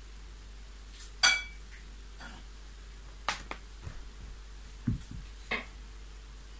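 A sharp clink with a short ringing tail about a second in, then a few light knocks, a dull thump and a last click, as a cat gets out of a plastic basket onto a wooden floor.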